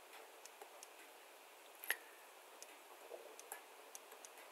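Near silence with faint, scattered ticks of a stylus tapping and sliding on a drawing tablet, and one louder click about two seconds in.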